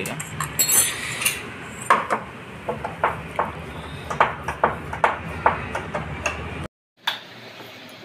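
Hand tools clinking and tapping on the washing machine's steel gearbox mounting plate and its nuts as the fasteners are undone: a run of irregular sharp metallic clicks, one ringing briefly. The sound cuts out near the end.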